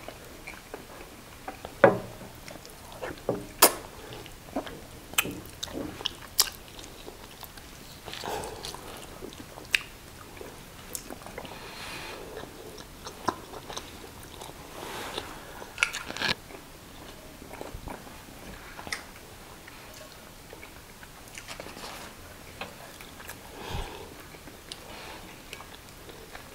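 Close-up eating sounds of konkonte (cassava dough) with peanut soup and chicken eaten by hand: chewing and biting, with irregular sharp smacks and clicks.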